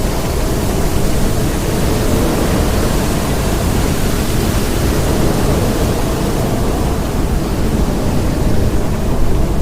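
Storm ambience: a loud, steady wash of wind and rain noise with a deep, low rumble underneath and no distinct thunderclap.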